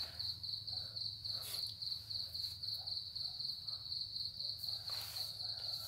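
A cricket trilling steadily in a high, fast-pulsing tone, over a faint low hum.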